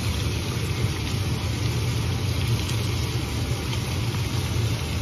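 Pork ribs sizzling in a hot wok over a steady low hum, with no clear knocks or breaks.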